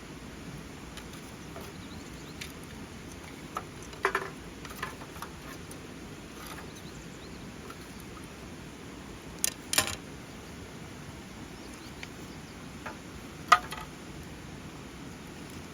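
Steady background rush with a few scattered sharp clicks and knocks: one about four seconds in, a quick pair a little before halfway, and the loudest near the end.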